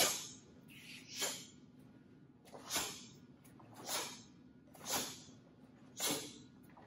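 Taekwon-do practitioner's sharp breath exhalations, one short hissing burst with each technique of the pattern, six times about a second apart.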